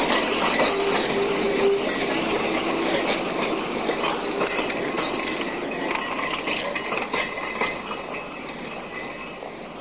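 A tram rolling along street rails, its wheels clattering over the rail joints, with a brief steady whine about a second in. It grows fainter toward the end as it moves away.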